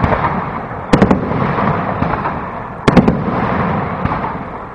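Aerial fireworks shells bursting: two sharp bangs, about a second in and near three seconds in, each a quick double crack, and each followed by a long rumbling echo.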